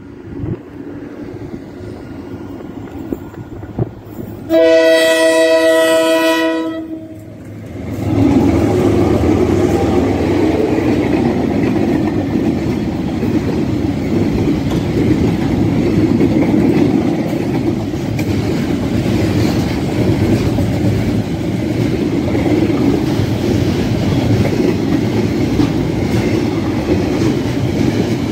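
A KiwiRail freight train's locomotive sounds its horn once, several notes at once held for about two and a half seconds, about five seconds in. Then the train's wagons roll past with a steady rumble.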